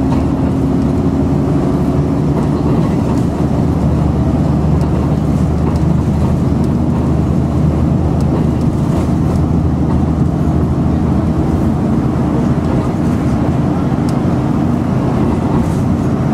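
Steady drone of a bus engine and road noise heard from inside the passenger cabin while the bus drives along the road.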